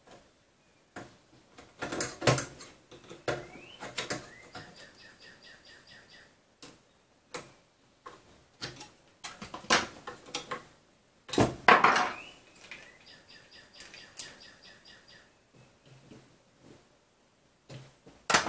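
Hands working on a 3D-printer frame: scattered knocks and clicks of plastic and metal parts being handled and a brace clamp tightened, with two short squeaks that rise in pitch and then hold, about three seconds in and again about twelve seconds in.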